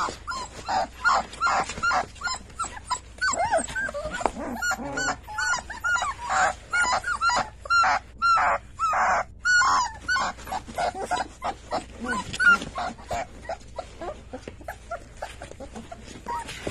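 A litter of young puppies whimpering and squealing together, many short high calls overlapping one another, busiest in the first ten seconds and thinning out toward the end.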